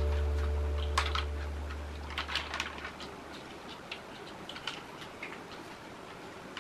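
Scattered light clicks and taps of plastic toys being handled, irregular and a few to the second. A low music note fades out over the first couple of seconds.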